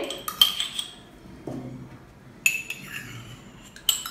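A metal spoon clinking against a clay cup and glass bowl while thick curd is scooped out: four sharp clinks with brief ringing, two near the start, one about two and a half seconds in and one near the end.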